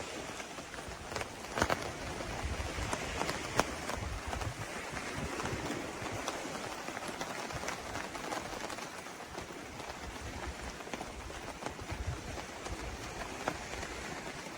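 Steady rain falling, with scattered sharper drop hits now and then.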